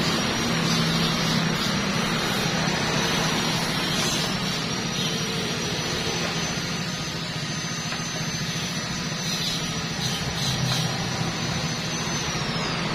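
MIG welding arc from a Vektor MIG 185 welder, crackling steadily as it burns wire, with a thin high whine that drops in pitch near the end.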